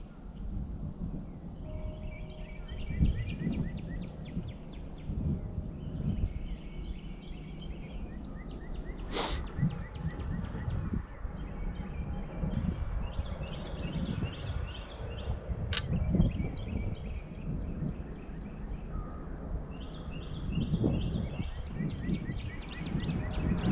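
Low wind rumble on the microphone, with a bird's rapid chattering calls repeated in short phrases every few seconds. Two sharp clicks, about 9 and 16 seconds in.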